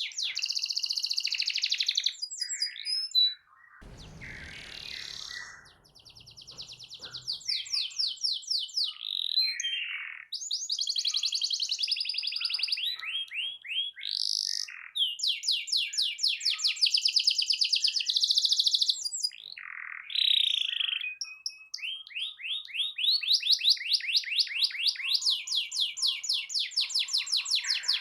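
Domestic canary in full song, pouring out long phrases of rapid high trills and rolls with gliding notes between them, broken by short pauses.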